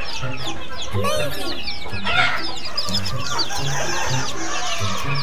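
Chicks peeping over and over in quick, short, high chirps that drop in pitch, with background music and its low bass notes underneath.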